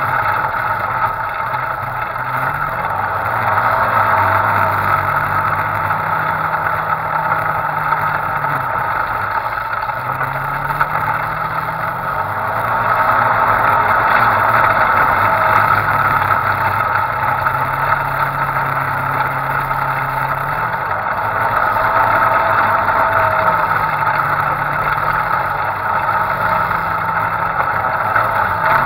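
Off-road side-by-side's engine running under way over sand, its revs rising and falling again and again with the throttle.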